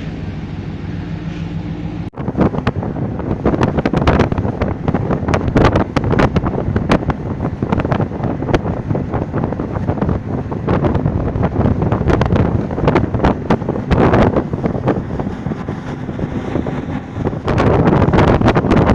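Yamaha 300 four-stroke outboard running, with heavy wind buffeting the microphone as on a boat under way. The sound changes abruptly about two seconds in and grows louder near the end.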